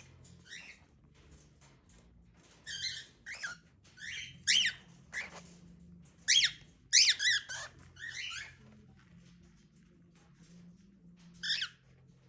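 Cockatiel giving a string of short, squeaky chirps and quick falling whistles in clusters, then a pause and one more chirp near the end.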